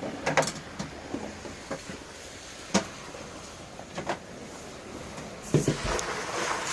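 Scattered sharp knocks and clicks from tools and metal parts being handled, with a sharp clunk near the middle and a louder cluster of knocks and some rustling near the end.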